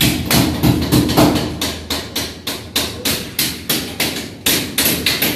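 Hammer striking rapidly and repeatedly, about four to five sharp blows a second.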